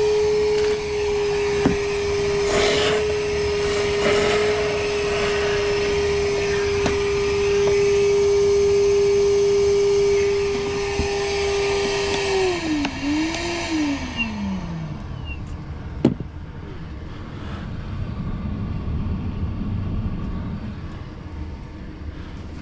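Wet/dry vacuum running steadily with a constant whine, drawing water out of a clogged air-conditioner condensate drain line. About twelve seconds in it is switched off and the motor winds down, its pitch falling away, leaving a quieter rumble and a single sharp click.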